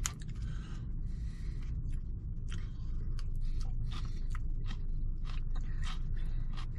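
A man eating coleslaw with a plastic fork: small scrapes and many short clicks of chewing over a steady low hum in a car cabin.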